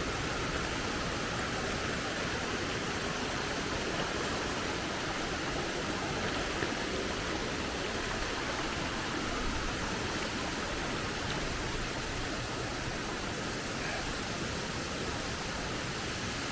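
Waterfall, water rushing and falling with a steady, even sound.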